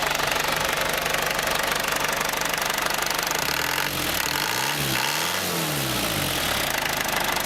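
Isuzu 2.8 turbo diesel engine idling steadily. Around the middle its note rises and falls a couple of times.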